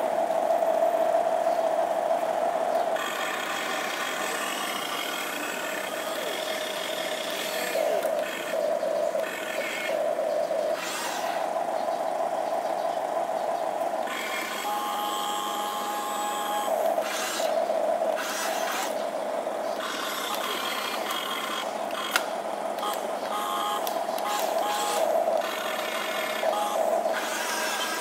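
Electric motors and gearboxes of an RC toy excavator whining as it swings its boom and drives on its tracks, the whine starting, stopping and changing pitch with each movement, with occasional clicks.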